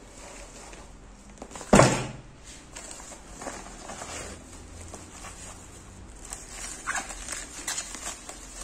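Plastic courier mailer and bubble-wrapped box being handled, with scattered rustling and crinkling, and one loud thump a little under two seconds in.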